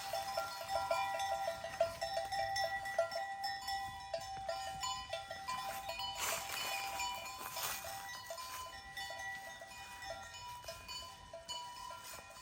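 Livestock bells of a flock jingling and clanking, many overlapping ringing notes at different pitches, growing gradually fainter toward the end.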